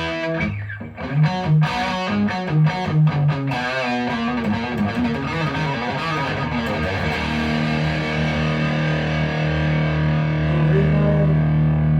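Electric guitar played through a Marshall DSL40CR tube combo amp: a run of separately picked notes in the first few seconds, then a chord struck and left to ring out steadily.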